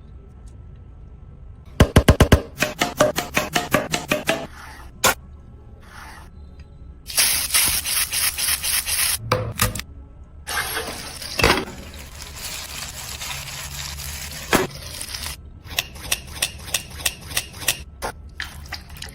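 Close-miked mukbang eating: runs of quick, rhythmic chewing and mouth sounds, several strokes a second, broken by short pauses with the odd sharp click.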